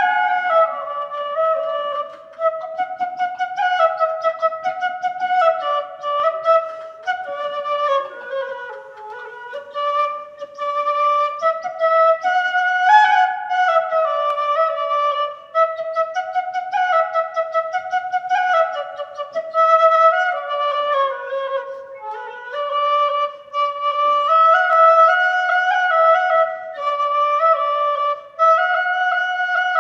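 A woodwind instrument playing a solo melody, one line of notes that slide into one another, with no accompaniment.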